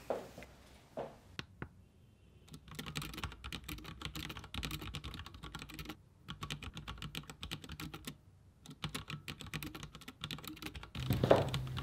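Typing on a Dell laptop keyboard: a few separate key taps, then fast runs of key clicks broken by two short pauses, about six and eight seconds in.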